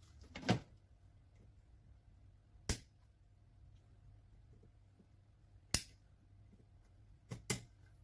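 Sharp clicks and taps of pliers and small metal parts of a Makita 9237C polisher being handled during disassembly, about five in all, a few seconds apart, with two close together near the end.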